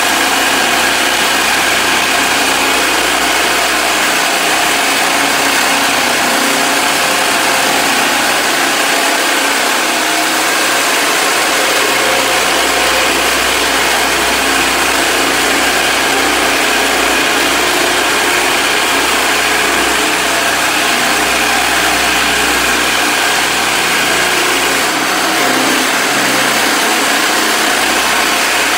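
Electric floor stripper running steadily, its blade cutting under and peeling up a PVC vinyl floor covering from the concrete: a continuous motor drone mixed with scraping.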